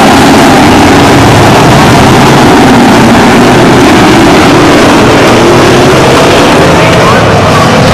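A pack of stock-car engines running hard on a short paved track, very loud. Engine pitches waver, and one rises near the end as a car accelerates.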